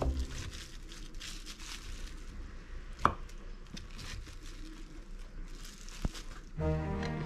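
A kitchen knife cutting through a soft block of cooked minced chicken breast on a wooden cutting board lined with plastic wrap: quiet pressing and crinkling of the cling film, with a sharp knock of the blade on the board about three seconds in and another near six seconds. Background music comes back in near the end.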